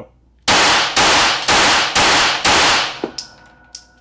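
Five rapid 9mm pistol shots from a Glock 43 firing Hornady 115 gr Critical Defense, about two a second. A few light metallic clinks follow as the spent brass casings land.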